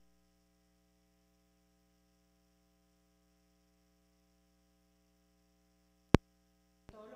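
Steady electrical mains hum with one sharp click about six seconds in.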